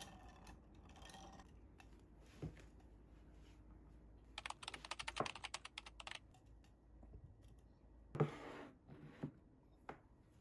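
Quiet tabletop handling sounds: metal straws stirring ice in a tall glass, then a rapid run of light clicks for about two seconds, and near the end a knock and two light clicks as a glass and a plate are set down on a desk.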